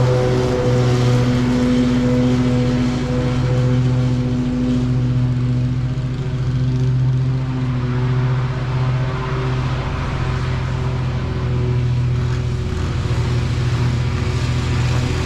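Commercial lawn mower engine running steadily at working speed while mowing, with a strong low hum and a slight rise and fall in level.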